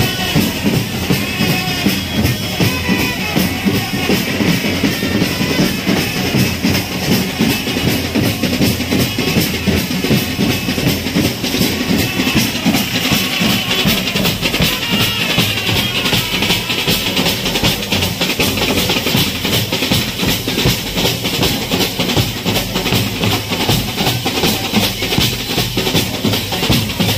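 Drums played loudly in a fast, dense beat: rapid strikes over a bass drum.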